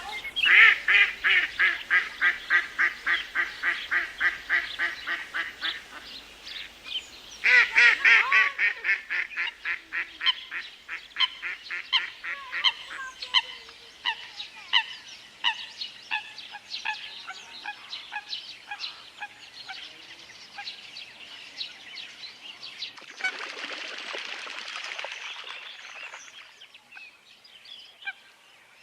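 Waterfowl calling: a rapid string of repeated calls, about four a second, that breaks off, starts again and thins out into scattered calls. About two-thirds through, a rushing noise lasts a few seconds.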